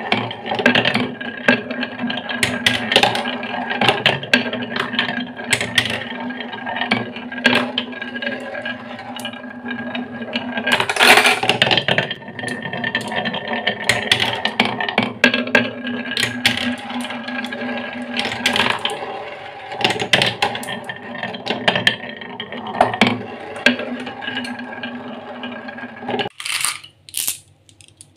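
Marbles rolling round and round a wooden spiral marble-run track: a continuous rolling rattle with a steady ringing hum and frequent small clicks as they knock against the wooden walls. Near the end the rolling stops and a few sharp separate clicks follow.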